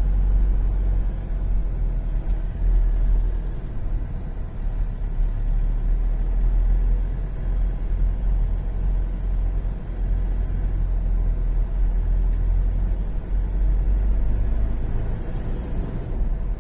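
A vehicle on the move: a steady, noisy low rumble of engine and road noise.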